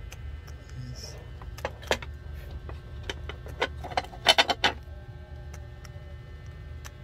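Packaging being handled during an unboxing: a few sharp clicks and rustles, then a short burst of loud crackling about four seconds in, like plastic film or box material being handled.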